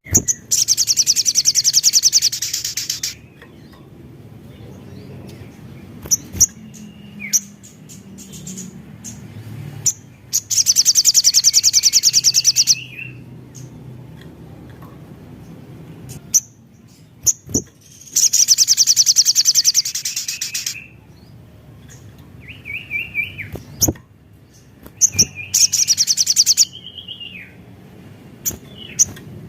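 A sogon sunbird singing: four rapid, very high trills of two to three seconds each, with short lower chirps and clicks between them.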